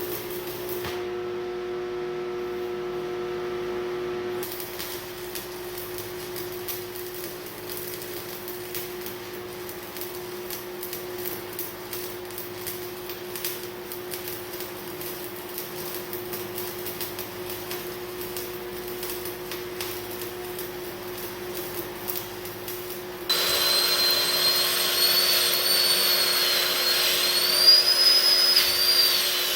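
Welding on a steel bale fork: a steady hum with a dense fine crackle. About 23 seconds in, a louder power tool starts with a high whine that wavers in pitch.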